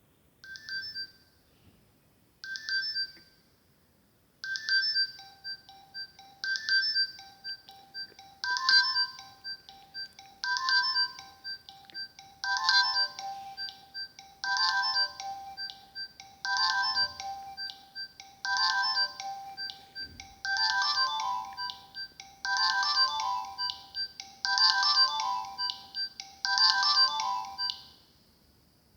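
Nokia 6070 mobile phone playing a polyphonic ringtone: an electronic melody whose phrase repeats about every two seconds. Two short opening phrases lead in, then a steady pulsing line joins and the tune grows fuller with each repeat before stopping near the end.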